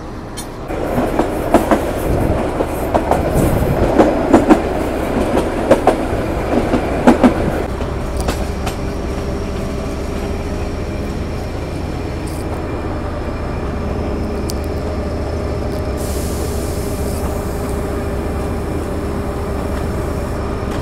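Narrow-gauge train running along the track, its wheels clattering and knocking over the rail joints. About eight seconds in this gives way to a narrow-gauge diesel locomotive idling steadily, with a brief hiss of air near the end.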